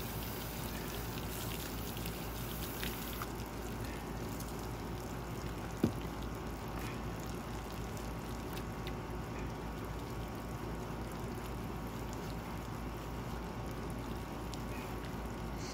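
Steady running, trickling water, with a single sharp knock about six seconds in.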